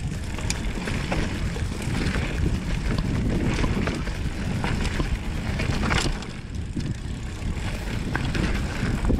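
Mountain bike ridden down a dirt trail: tyres on loose ground and the bike rattling under wind on the microphone, with a few sharp knocks, the loudest about six seconds in.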